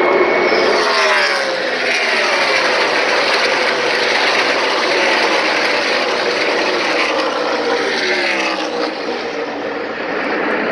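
A pack of stock cars racing past at full throttle, their V8 engines a dense, loud roar. Twice, about a second in and again near the end, a group of engines sweeps by and drops in pitch as it passes.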